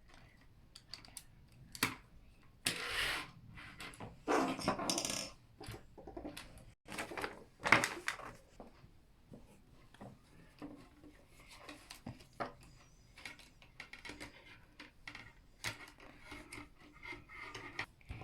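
Meccano Junior construction-toy pieces being handled and fitted together: scattered clicks and taps, with a few short rustling, rattling bursts about 3, 5 and 8 seconds in.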